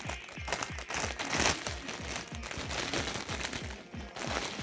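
Plastic packaging crinkling and rustling irregularly as a plush toy is pulled out of it, over background music.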